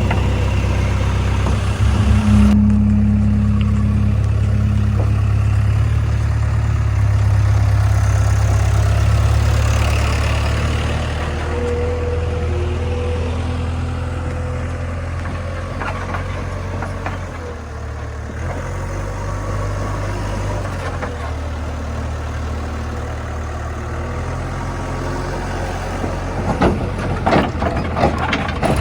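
Diesel engine of a JCB 3DX backhoe loader running steadily at low revs, louder for the first ten seconds or so and then easing off. A run of knocks and clatter comes near the end.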